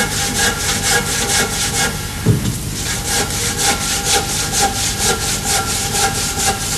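Handsaw cutting through a gypsum plaster block in quick, even back-and-forth strokes, about four a second. A little past two seconds in the strokes break off briefly with a dull knock, then resume.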